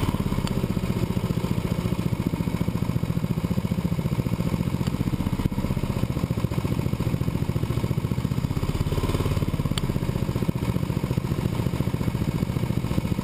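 Go-kart engine running steadily under way on the track, heard close up from the kart, with a fast even pulse and no big rises or falls in revs.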